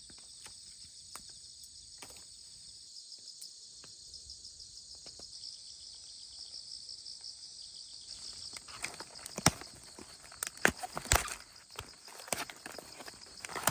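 Steady high chirping of insects, crickets by its sound, with a run of sharp clicks and knocks in the second half.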